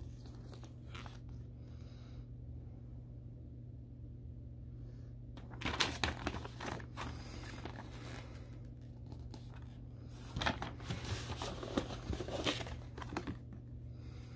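Paper rustling as a folded instruction booklet and a card are handled, in two bursts about six and ten seconds in, over a steady low hum.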